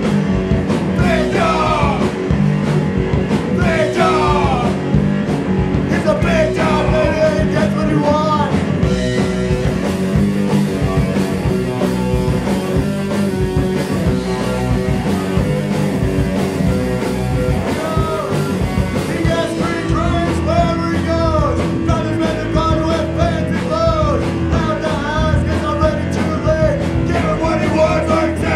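Punk rock band playing live: distorted electric guitars, bass and drums driving a fast song, with a singer's vocals over the band.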